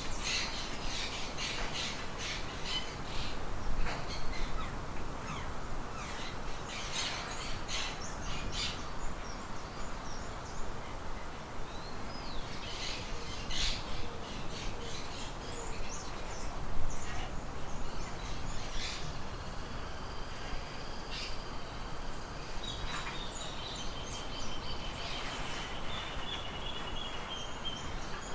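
Several small birds chirping and calling in short, scattered notes, with a longer repeated trill in the last few seconds, over a steady background hiss.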